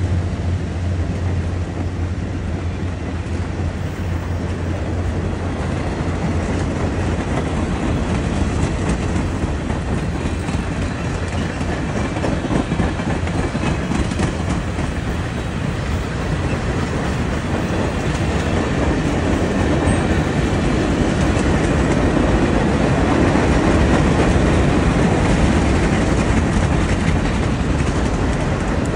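Streamlined stainless-steel passenger cars of an excursion train rolling past, their wheels clicking and rumbling steadily on the rails. The passed diesel locomotive's low drone fades over the first couple of seconds.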